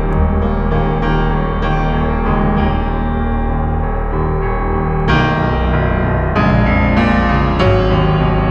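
Background music led by piano or electric piano: held notes and chords with a new one struck every second or so, and a brighter chord about five seconds in.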